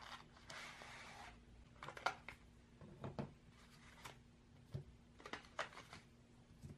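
Cream cheese portions in their wrappers lifted out of a cardboard box and set down on a wooden table: a brief soft rustle about half a second in, then a string of light taps and clicks.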